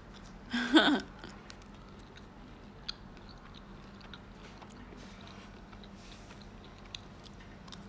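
A person chewing food close to the microphone, with faint scattered crunchy clicks. A short vocal sound comes about half a second in and is the loudest thing.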